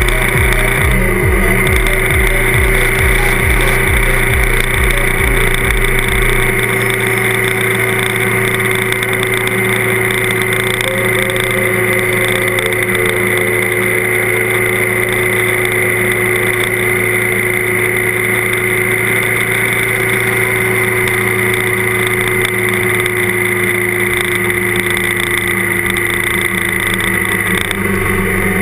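Trail motorcycle engine running at a steady cruising speed, its pitch easing slightly down near the end.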